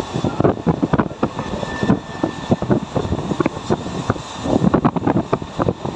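Mumbai suburban local train in motion: irregular rattling and clatter with wind noise on the microphone.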